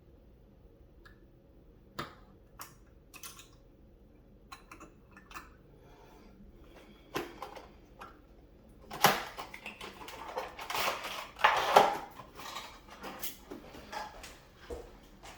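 Clicks, taps and clattering of small hard computer parts being handled, sparse at first and busiest in the second half, as a PC test bench is taken apart to swap the CPU.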